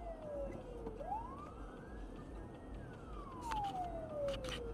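Ambulance siren in a slow wail: the pitch falls, climbs back over about a second and a half, then falls again, with a few sharp clicks near the end.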